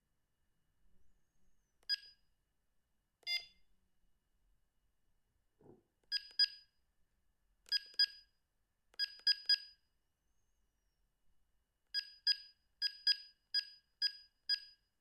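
Sony CM-H777 mobile phone giving short high keypress beeps as its buttons are pressed to move through the menu: single beeps at first, then pairs, and a quick run of beeps near the end. A soft low thump about halfway through.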